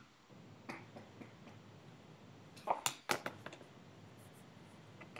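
A few faint, sharp clicks and taps over quiet room tone, the loudest three close together about three seconds in.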